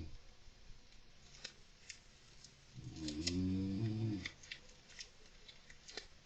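A person snoring once: a single pitched snore about halfway through, lasting just over a second, that repeats on a slow breathing rhythm. Faint, sharp clicks and ticks from a golden hamster at play are scattered through the rest.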